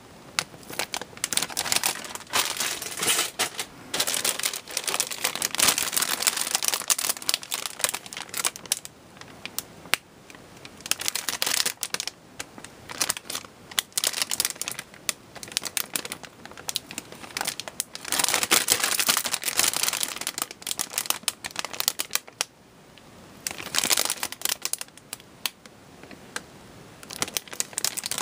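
Clear plastic bags crinkling as bagged plastic model-kit runners are handled and shifted, with sharp clicks and rattles of the hard plastic parts. The noise comes in stretches with a few short pauses.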